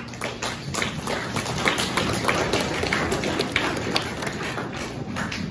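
Audience applauding, swelling over the first couple of seconds and then tapering off near the end.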